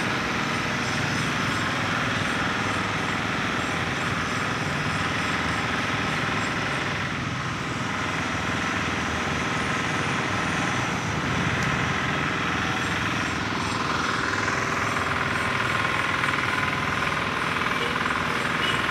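Busy city street traffic: a steady din of car, truck and motorbike engines passing and idling, with one engine note rising about two-thirds of the way through.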